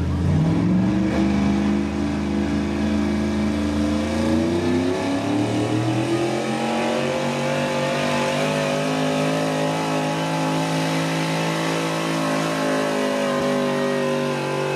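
A pulling vehicle's engine revving hard on the pull: its pitch climbs sharply at the start, climbs again about five seconds in, then holds at high revs to the end.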